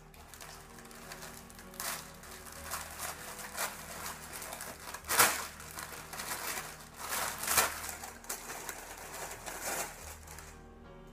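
Plastic mailer bag and the plastic wrap around a garment crinkling and rustling as they are handled and opened, in irregular crackles, loudest about five seconds in and again around seven and a half seconds; it dies down near the end.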